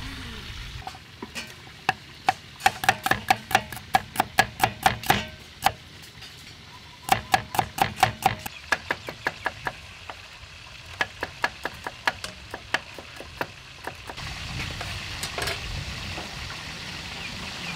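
Cleaver chopping shallots on a wooden cutting board: quick runs of sharp knocks, about four a second, in several bursts with short pauses between them.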